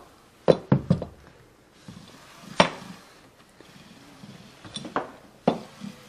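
Several sharp, irregularly spaced knocks and clicks as a seat belt retractor assembly is handled and set against a wall.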